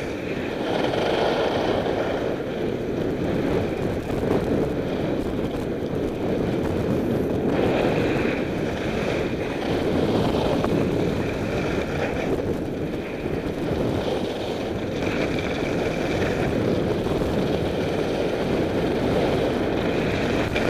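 Wind rushing over the microphone of a camera carried by a skier going downhill, with the hiss of skis sliding on hard-packed snow. The noise swells and eases every few seconds with the turns.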